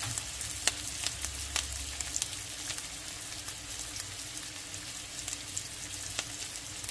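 Chopped onion and garlic sautéing in oil in a frying pan: a steady sizzling hiss with scattered sharp pops and crackles.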